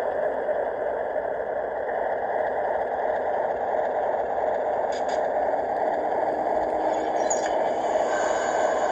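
3D-printed model train running on its track, a steady mechanical running noise from its motor and wheels.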